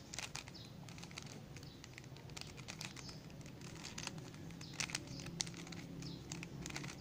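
Plastic Rubik's cube being turned by hand: quick, irregular clicks and rattles of the layers as the same sequence of turns is repeated on the last layer, with a few louder clicks about five seconds in.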